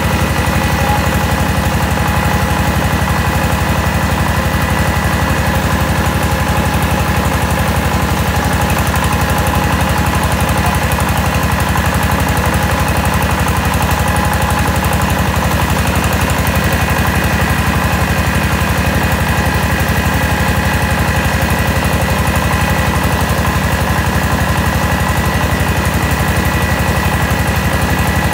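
A mobile rice huller running steadily while it mills unhusked rice: a fast, even engine drone with a thin steady whine above it from the milling machinery.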